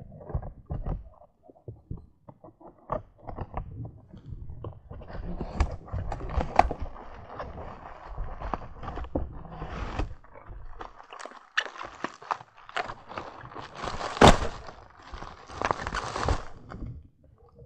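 A package being opened and handled by hand: irregular rustling, scraping and clicking of cardboard and packaging, with scattered knocks, the sharpest about two thirds of the way through.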